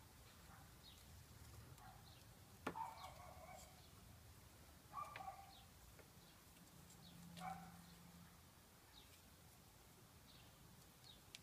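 Near silence with faint bird chirps and a few louder bird calls, and one sharp click a little under three seconds in.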